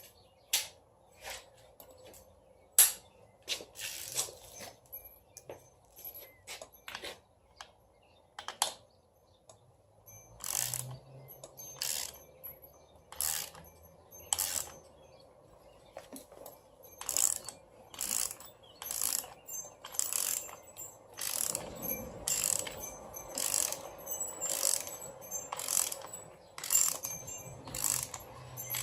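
Hand ratchet wrench clicking as bolts are run in on the engine's front accessories: scattered clicks at first, then steady back-and-forth strokes, about one or two a second, from about ten seconds in.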